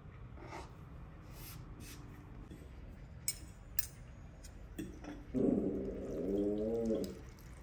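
Two light clinks of utensils against a pasta bowl, then a drawn-out wavering voice-like call lasting about a second and a half, rising and falling in pitch.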